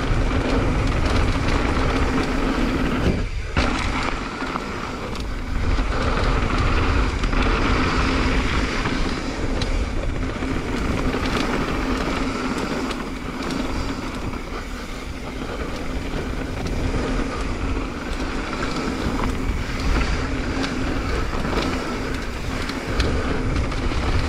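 Mountain bike descending a dirt trail at speed: tyres rolling over the dirt, wind rushing over the microphone, and a sharp knock from the bike about three seconds in.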